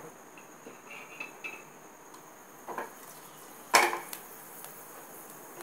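An aluminium pressure cooker being shifted on a stove by its handle: a few light clinks, then one sharp metal knock a little past halfway.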